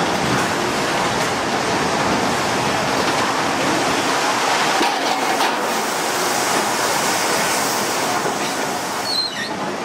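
Loud, steady machinery noise from a sawmill's log-handling line, with a few brief high squeaks about nine seconds in.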